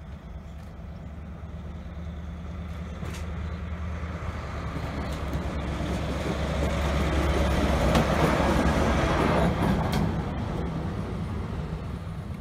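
A locomotive running light passes close by. Its low steady drone and the rumble of its wheels on the rails build up, peak about eight seconds in, and begin to fade as it moves away.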